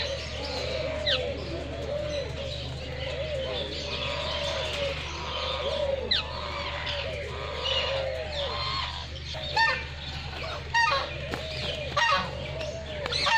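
A mixed aviary chorus: pigeons and doves cooing over and over, with many smaller birds chirping and whistling above them. Three louder, harsher calls stand out near the end. A steady low hum runs underneath.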